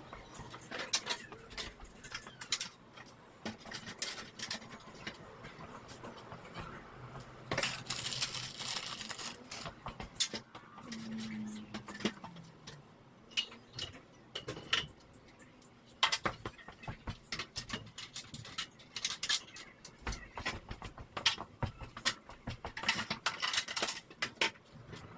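Irregular metallic clinks, rattles and knocks of hardware and tools being handled during a garage door opener installation, with a longer stretch of rustling noise about a third of the way in.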